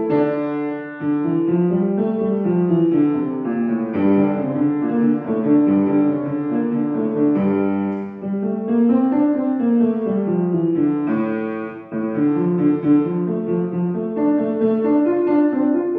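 Upright piano played solo: a steady stream of quick notes, with runs that climb and then fall back in arcs.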